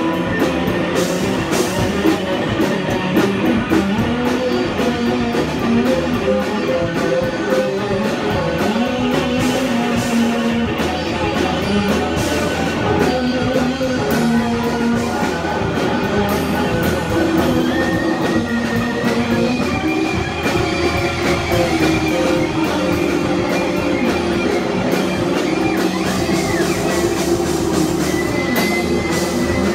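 Live punk rock band playing an instrumental passage without vocals: drum kit with cymbals, electric guitar and bass, with a banjo in the lineup. Long held notes run over the steady beat.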